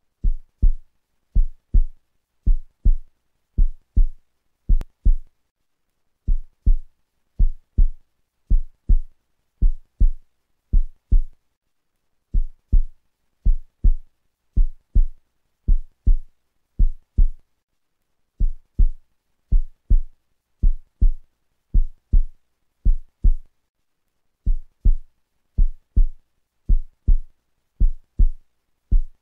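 Heartbeat sound effect: low double thumps, lub-dub, about once a second, breaking off for a beat every six seconds or so.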